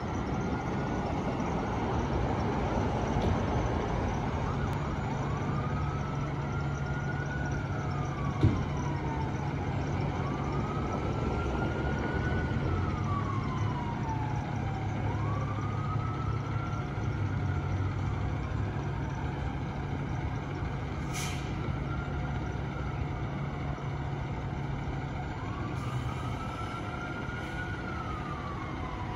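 Emergency siren wailing in slow cycles, each rising quickly and falling slowly, about every five seconds, over the steady low rumble of a fire engine idling. A brief sharp hiss comes about 21 seconds in.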